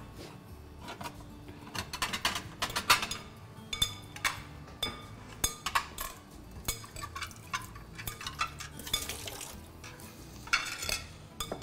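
Irregular clinks and knocks of kitchen utensils and dishes: a salad being mixed in a glass bowl and plates being handled on a counter.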